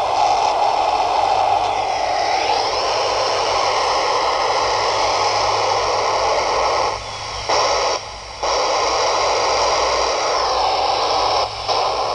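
Handheld radio's speaker giving a steady FM static hiss while tuned to the AO-51 satellite downlink, with no voice on it. The hiss dips briefly about seven and eight seconds in, and again near the end.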